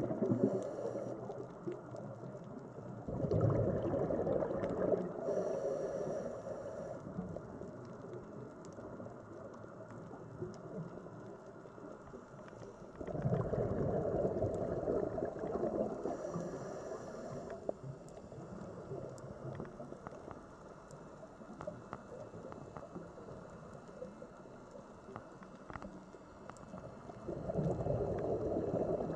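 Underwater bubbling and rushing from a scuba diver's exhaled breath, coming in bursts of two to four seconds about every ten to fourteen seconds, with a quieter watery hiss between them.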